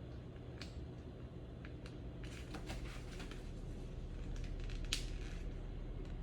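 Scattered short clicks and rustles over a steady low hum, with the sharpest click about five seconds in.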